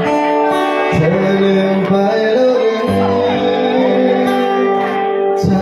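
A song being performed live: a singer's voice over guitar-led backing music.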